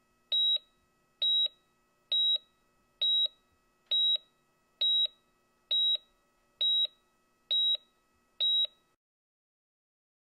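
Electronic medical monitor beeping steadily, about one short high beep every second. Ten beeps, then the beeping stops about nine seconds in.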